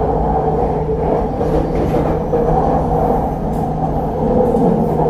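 Purple Line elevated metro train running, heard from inside the carriage: a steady rumble with a constant low hum.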